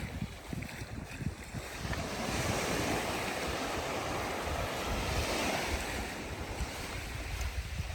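Sea surf: a wave breaks and washes up the beach, swelling about two seconds in and fading near the end, with wind buffeting the microphone.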